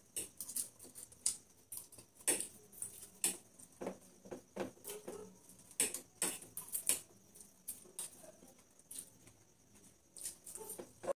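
Two people eating noodles quickly with forks: irregular clicks of the forks against their plates, with slurping and chewing in between.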